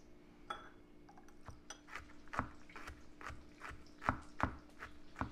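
A knife chopping on a cutting board: a run of sharp knocks, about two to three a second, over a faint steady hum.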